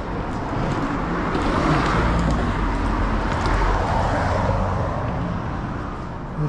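Road traffic: motor vehicles passing by over a steady low engine rumble, the road noise swelling twice and then fading.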